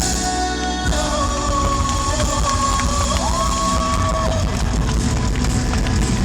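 Live pop-rock band playing through the end of a song, with a held high note that slides up in pitch about three seconds in and stops a second later.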